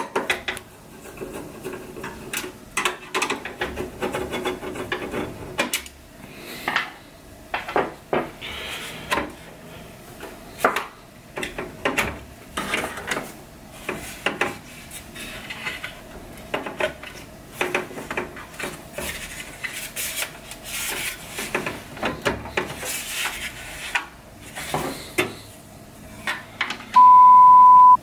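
Hands pulling a GeForce GTX graphics card out of a metal PC case: irregular clicks, knocks and scraping of screws, bracket and card against the case. Near the end a loud one-second censor bleep, a steady single tone, covers a word.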